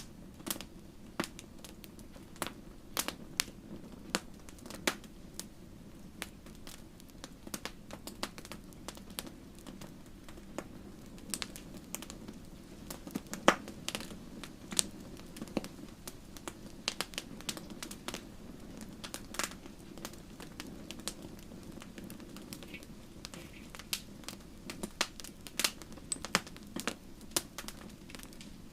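Bonfire crackling: irregular sharp pops and snaps over a low steady rumble, with one louder pop about halfway through.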